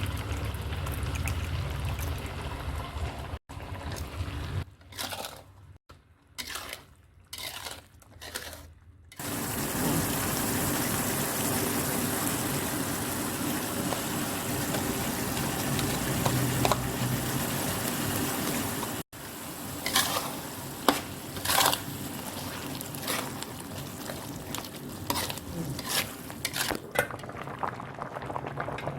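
Kitchen liquid sounds: water or liquid being poured and stirred, in several short edited segments. In the second half, sharp clicks of a utensil against a pot or bowl come in now and then.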